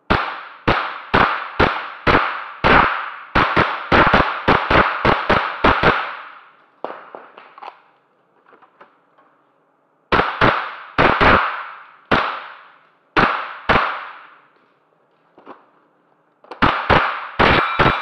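AR15-22 semi-automatic .22 rimfire rifle firing quick strings of shots, each shot echoing briefly off the range hall: about fifteen shots in the first six seconds, a pause, a string of about seven more, then a few more near the end.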